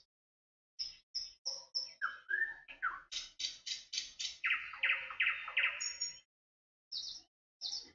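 A small bird chirping: a quick run of short, high chirps and warbled calls for about five seconds, then two single chirps near the end.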